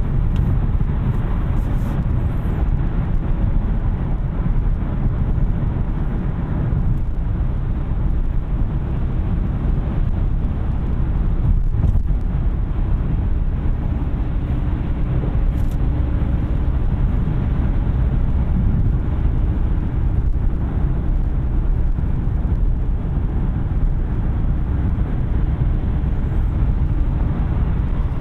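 2021 Kia K5 Hybrid on the move: a steady low rumble of road and tyre noise. A faint hum joins in briefly about halfway through.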